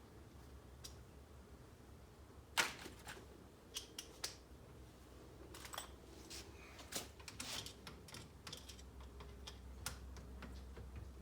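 Scattered light clicks and taps of hand tools and small parts being handled while working on an RC car, irregular and unhurried, with one sharper click about two and a half seconds in.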